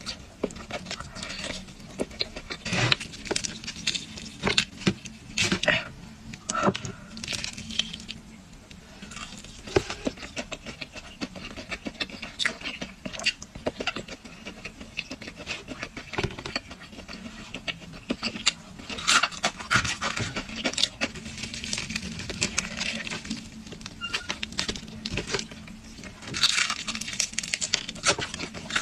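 Close-miked chewing of crispy fried chicken: irregular crunching and crackling bites with wet mouth sounds, louder bursts of crunching coming in clusters.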